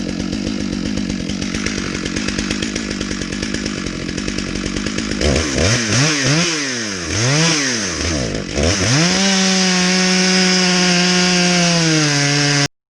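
Two-stroke chainsaw on a chainsaw mill, running at a lower speed with a fast ticking. From about five seconds in it is revved up and down several times, then held at a steady high speed. The sound cuts off abruptly near the end.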